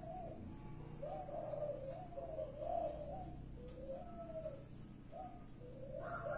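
Spotted dove cooing: a steady series of low coo notes, each rising then falling, repeated about one to two a second.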